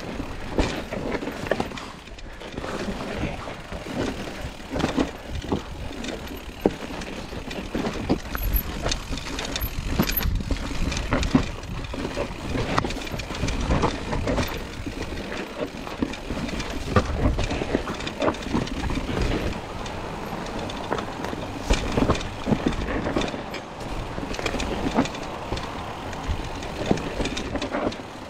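Mountain bike clattering over a rough, rocky trail: a steady run of sharp knocks and rattles from the bike over tyre noise, with a low rumble underneath.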